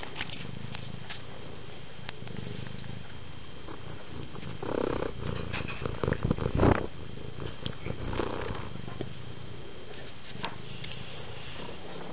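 Domestic cat purring steadily right at the microphone, with a louder stretch of irregular noise for a couple of seconds about halfway through.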